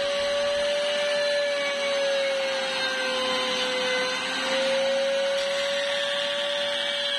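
Electric motor of a disc sander running without load: a steady whine that drifts slightly up and down in pitch over a hiss.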